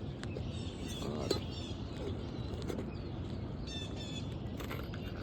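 Birds chirping in short, quickly repeated high phrases, twice, over a steady low background noise, with a sharp click about a second in.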